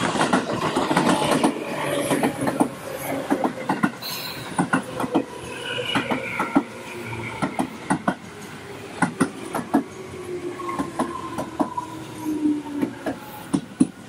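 Electric commuter train passing close by, loudest as it arrives. Its wheels clack over the rail joints in many irregular clicks, under a whine that slowly falls in pitch.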